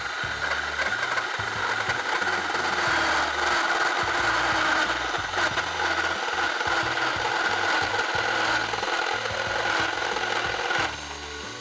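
Bauer 20V cordless drill running a hole saw into wood, a steady loaded grinding cut that stops about eleven seconds in once the saw can go no deeper.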